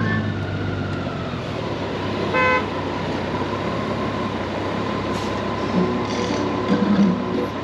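Steady riding noise of a Honda Gold Wing motorcycle on the road, engine hum under wind and road noise, with one short horn toot about two and a half seconds in.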